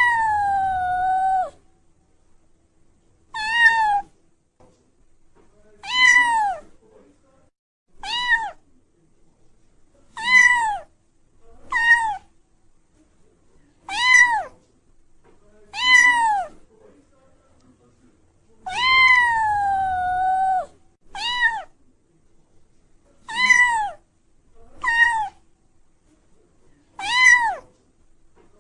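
Domestic cat meowing over and over, one call about every two seconds. Most calls are short and rise then fall in pitch; two, at the start and about two-thirds of the way through, are long drawn-out meows that slide down and hold. The calls are near-identical in shape.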